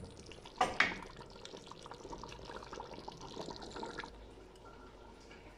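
Wet liquid sounds from a pot of taro and chickpea stew, with a single sharp knock about a second in. The sound fades to a quieter background at about four seconds.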